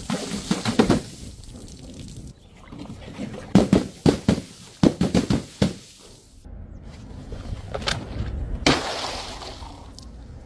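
Several bursts of rapid clicking and knocking, a couple of seconds apart, and a short hissing rush near the end.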